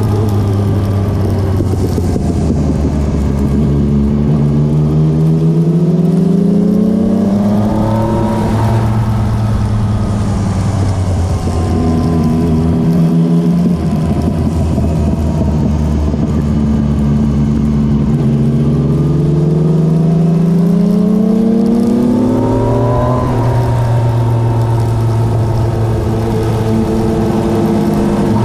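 Motorcycle engine heard on board while riding. Twice it climbs steadily in pitch over several seconds as it accelerates, then drops abruptly at a gear change, with steadier running between, over a constant rush of wind.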